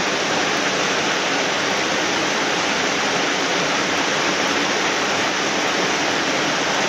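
Small waterfall pouring into a stream pool, a steady, even rush of falling and churning water.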